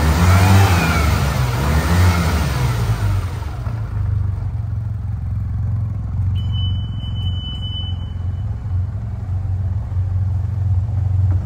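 SYM TL 508 maxi-scooter's parallel-twin engine running, with a steady low hum throughout. Over the first three seconds or so a louder rushing noise sits on top, then it settles to the plain low running sound.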